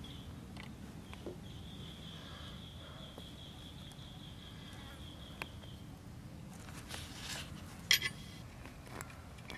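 Outdoor ambience: low steady background noise, with a thin, high, steady tone lasting about four seconds and a brief sharp crackle about eight seconds in.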